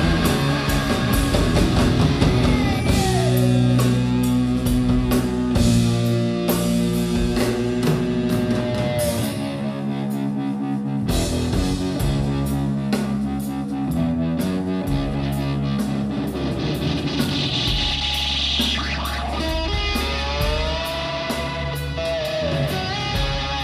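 Rock band playing live: electric guitar over a drum kit and bass, with steady drum and cymbal hits and long held notes that bend in pitch.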